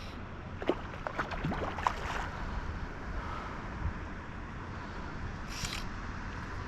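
Steady wind and rushing spillway water, with a quick run of small clicks and scrapes in the first two seconds and a short hiss near the end.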